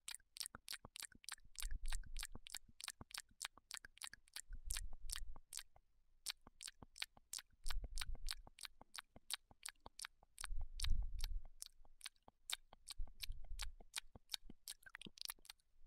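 A cat licking a screen up close: quick clicking tongue licks, about four a second, with low thuds every few seconds.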